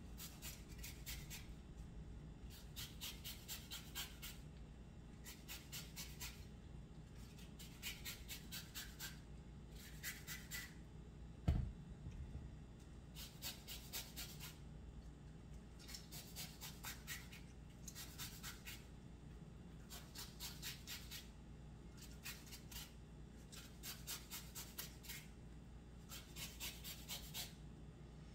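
A lemon rubbed against a flat hand grater to zest it: repeated bursts of quick rasping strokes, each burst about a second long. A single dull thump about halfway through is the loudest moment.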